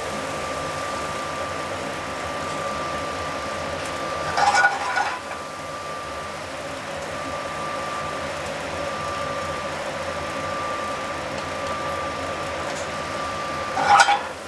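Steady hiss of a sauté pan sizzling on a gas range under a kitchen exhaust hood, with a thin steady whine running through it. Twice, about four seconds in and near the end, the metal pan is jostled on the burner grate with a brief clatter.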